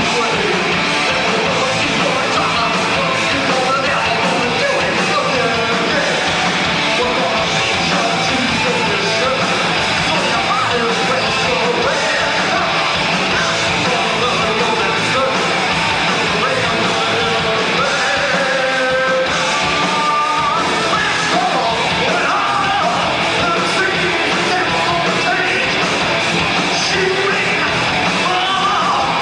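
Live heavy metal band playing: electric guitars, bass and drums, heard roomy and loud through a camcorder microphone out on the floor.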